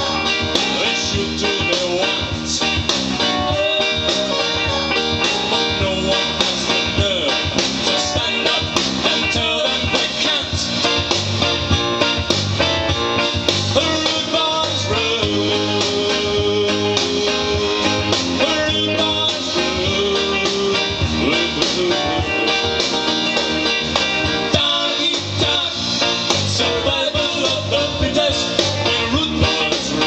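Background music: guitar-led music with a bluesy feel.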